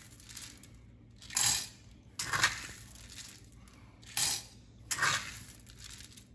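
Raw green coffee beans scooped from a cloth bag and poured into the chamber of a home coffee roaster, rattling in four short bursts.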